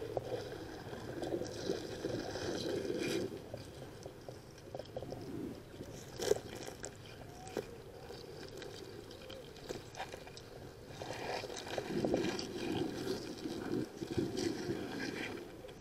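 Muffled water noise heard through a camera held underwater, swelling and fading, with a few soft knocks.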